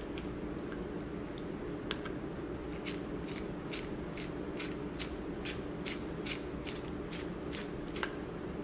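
Light clicks of a T4 Torx screwdriver backing out the tiny screws of a Lumia 950 XL's back frame, sparse at first, then about two to three a second, over a faint steady hum.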